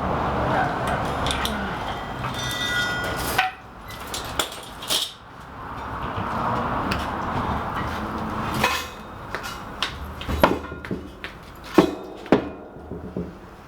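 Metal clinks and clanks, a few of them ringing briefly, over a steady noisy running sound that drops out about three and a half seconds in and again near nine seconds; a cluster of sharper clanks comes near the end, as a heavy anvil is handled onto its stump.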